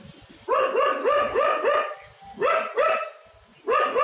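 Bursts of quick, high yipping calls, about five short notes a second, with short gaps between the bursts.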